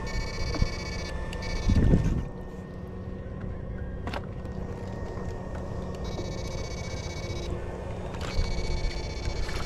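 Electrofishing shocker buzzing, a high many-toned whine that switches on and off in bursts of about a second, four times, over a steady low hum. There is a brief louder low rush about two seconds in.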